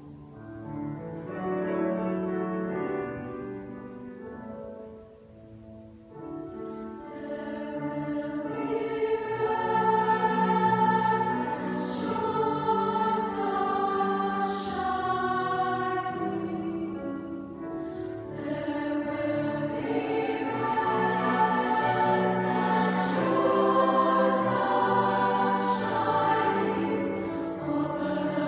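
Treble choir of young voices singing a choral piece in sustained notes. It is soft at first, dips about five seconds in, then swells louder from about eight seconds on.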